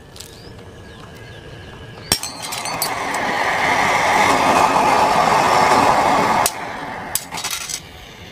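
Diwali anaar fountain firecracker burning inside a glass jar: a sharp crack about two seconds in, then a loud rushing hiss that builds and stops suddenly, followed by a few sharp clinks near the end as the glass jar cracks under the heat.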